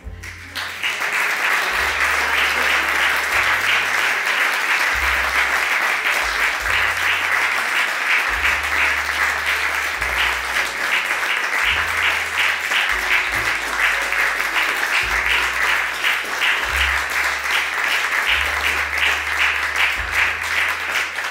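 Audience applauding, the clapping starting suddenly and holding steady.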